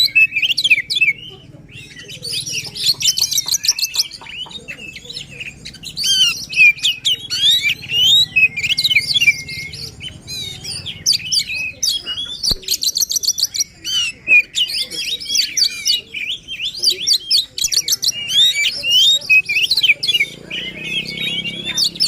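Oriental magpie-robin (kacer) singing in an agitated, full-song state: fast, varied whistled phrases with mimicked notes, broken by short pauses.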